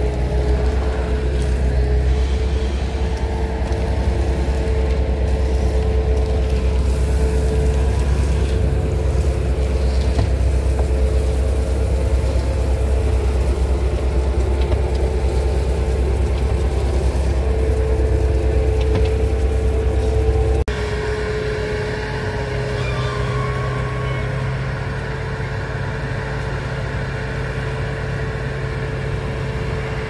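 Engine of heavy paving equipment running steadily, a deep hum with a steady tone above it. About two-thirds of the way through the sound changes suddenly to a slightly quieter engine drone.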